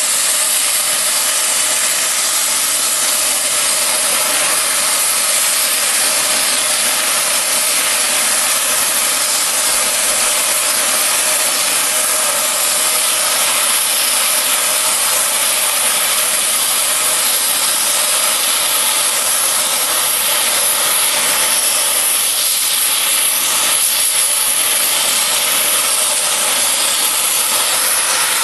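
Oxy-fuel cutting torch blowing a steady loud hiss as it flame-cuts a steel railroad rail into an anvil shape.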